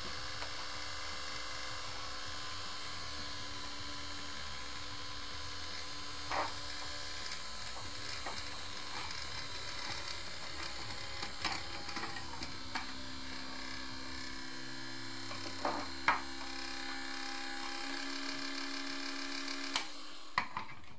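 Plastic screw-on cap of a homemade pipe electrolysis cell being unscrewed by hand and lifted off: a few scattered clicks and knocks over a steady hiss with faint hum tones, the sharpest knock about 16 seconds in.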